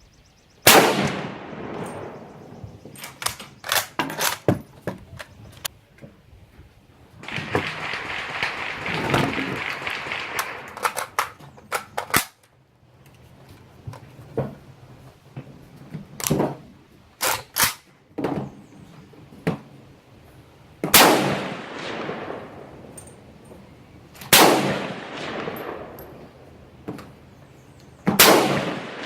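Rifle shots fired one at a time: four loud reports, each with a long echoing decay. Quieter cracks and metallic clicks come between them.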